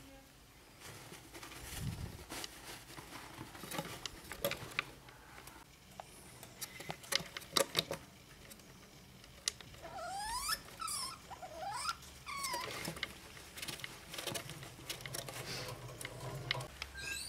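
Degu rustling and crackling about in shredded paper bedding, with a few high squeaks that rise and fall in pitch a little after halfway through.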